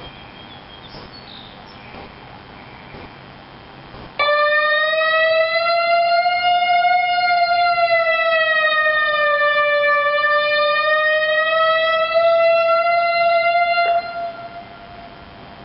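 Perry Weather lightning warning siren sounding its red-alert signal, which warns of lightning nearby: one long, loud tone with a slight waver in pitch, starting abruptly about four seconds in and cutting off about ten seconds later with a short fading echo.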